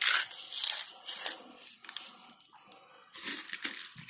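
Lay's potato chips crushed by hand and sprinkled, a dry crackling crunch in several bursts. The crunch is strongest near the start, thins out in the middle, and comes back about three seconds in.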